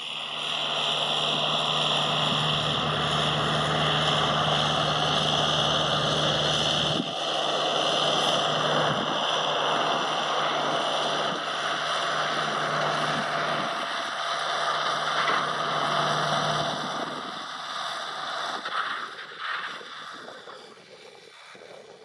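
Farm tractor engine running steadily, then growing quieter over the last few seconds as it fades away.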